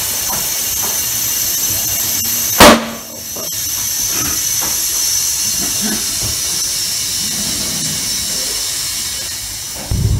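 Compressed air hissing from a tyre-inflation hose as a car tyre is inflated on its alloy rim, with one loud pop about two and a half seconds in. Just before the end it gives way to a car's low engine rumble.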